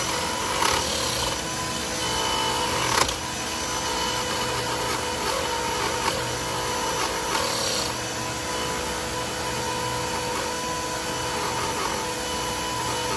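Dremel rotary tool running steadily as its bit grinds through boat fiberglass, with a shop vacuum drawing away the dust at the cut.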